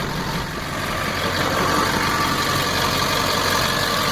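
LLY Duramax 6.6-litre V8 turbo-diesel idling steadily through a 5-inch straight-pipe exhaust with the resonator deleted.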